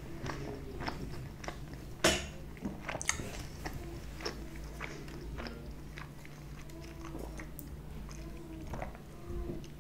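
Close-miked mouth sounds of a person chewing food, with scattered sharp wet clicks, the loudest about two seconds in.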